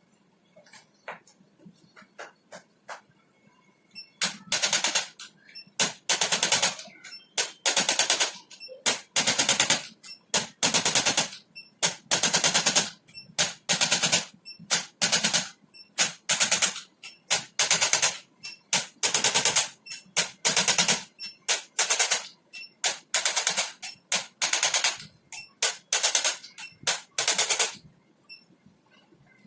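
A handheld device rattling with rapid mechanical pulses, in about twenty short bursts of under a second each, switched or pressed on and off repeatedly. It starts about four seconds in and stops shortly before the end.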